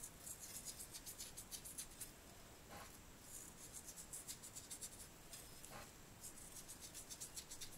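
Faint, quick scratchy ticks and rubbing from hands salting and laying out raw carp pieces.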